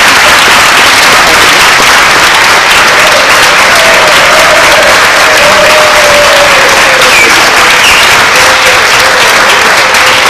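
Audience applauding, a loud, steady round of clapping from a large crowd in a hall.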